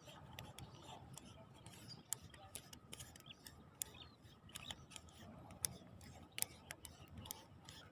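Faint, irregular sharp clicks and ticks, a few a second, over a low rumbling background noise.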